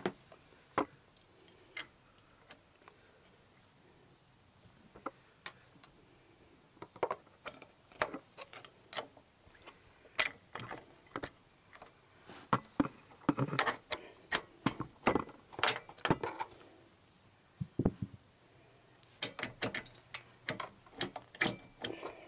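Irregular small metallic clicks and knocks as a spacer is worked by hand into a motorcycle's rear shock mount, sparse at first and then in quick clusters.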